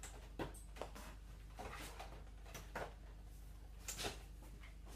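A handful of irregular light clicks and knocks as the plastic back cover of an LCD TV is handled and fitted over the set, over a faint low hum.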